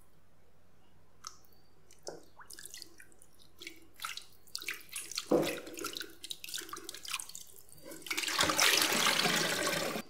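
Hands swishing and rubbing blanched pork bones and chicken feet in a basin of cold water, with scattered splashing. About eight seconds in, the water is poured out of the basin into the sink in a steady rush that stops suddenly.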